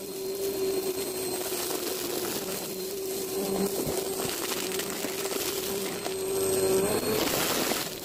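Upright vacuum cleaner running over a shaggy rug: a steady motor hum with the rush of suction, and small crackles as it picks up bits of debris. Near the end the hum grows louder and rises in pitch.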